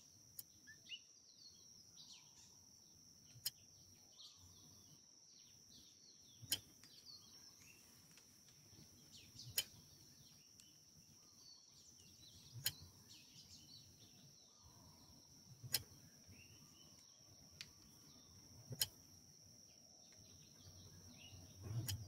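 Near silence: a faint background with a steady high-pitched hiss and a soft click about every three seconds.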